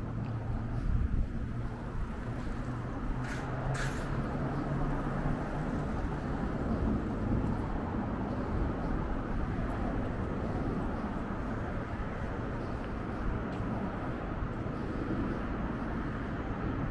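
Steady city street traffic noise: a low rumble of passing vehicles, with two brief high hisses a few seconds in.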